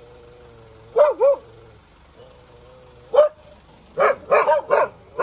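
A dog barking in short sharp barks: a double bark about a second in, a single bark just past the middle, then a quick run of four or five barks near the end.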